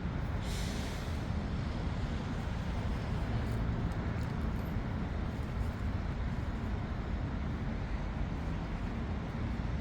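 Steady low outdoor rumble, with a brief hiss about half a second in.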